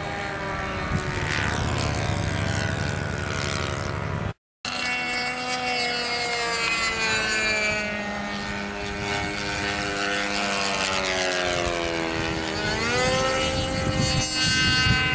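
Radio-controlled model airplane engines and propellers running. The engine note slides slowly lower over several seconds, then climbs sharply near the end. The sound cuts out completely for a moment about four seconds in.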